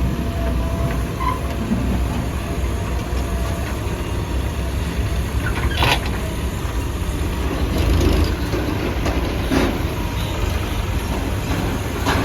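Mahindra backhoe loader's diesel engine running steadily under work, with a few short sharp knocks at irregular intervals and a brief swell in loudness about two-thirds of the way in.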